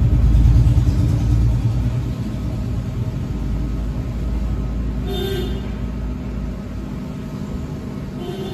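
A loud low rumble, strongest about half a second in and slowly easing off, with a brief higher tone about five seconds in and another at the end.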